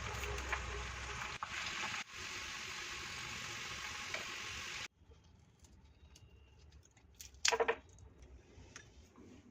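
Potato rolls frying in hot oil, a steady sizzle that cuts off suddenly about five seconds in. After that it is much quieter, with one short, sharp sound near the end.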